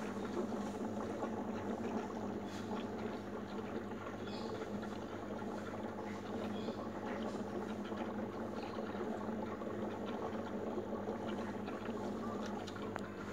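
Fish tank aeration bubbling steadily, over a constant low hum.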